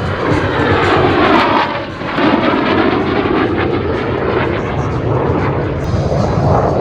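Jet noise from a USAF F-35A's single F135 afterburning turbofan as the fighter flies its display, loud, with a sweeping, phasing sheen over the noise in the first two seconds. The sound dips briefly about two seconds in, then carries on steadily.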